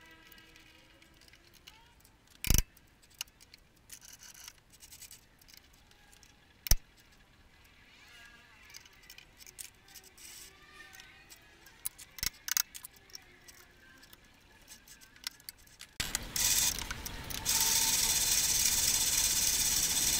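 Metal clicks and knocks as a square aluminium block is set and clamped in a mini lathe's chuck. About sixteen seconds in, the mini lathe's motor starts and runs steadily, much louder than the handling.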